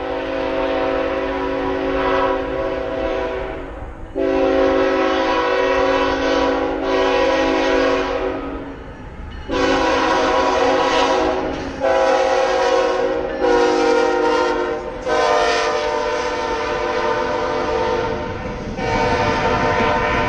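CSX freight locomotive's multi-chime air horn sounding a series of long blasts separated by short breaks, over the low rumble of the passing train.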